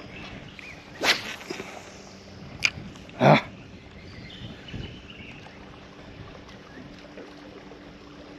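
Boat and fishing-tackle handling noises during lure casting: a few short knocks and a click, the loudest a brief noisy burst about three seconds in, over a faint steady hum.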